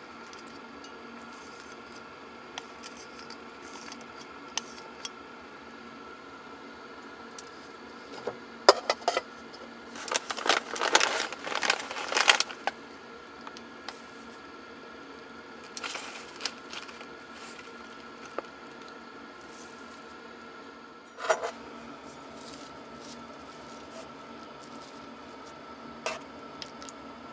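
Clinks and clatter of metal camp dishes and utensils being handled, busiest from about nine to twelve seconds in, with a few single knocks later, over a steady faint hum.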